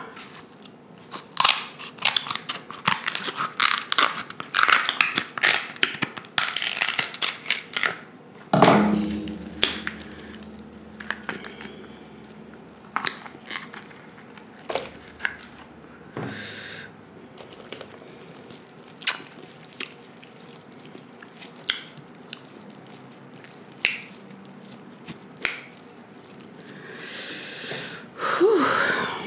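King crab leg shell being snipped with kitchen scissors and cracked, a dense run of sharp crackling clicks for the first several seconds. Then eating the crab meat: chewing and mouth sounds with scattered clicks, and a louder breathy rush near the end.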